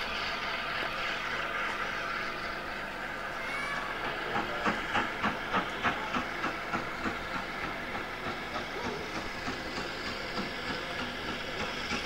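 Steam train arriving slowly over station pointwork: a steady hiss of steam, then from about four seconds in a regular clickety-clack of wheels over rail joints, about three clicks a second, slowing to about two as the train comes in.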